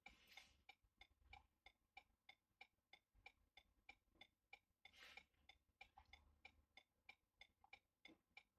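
Faint, even ticking at about three ticks a second, with a brief soft noise about five seconds in.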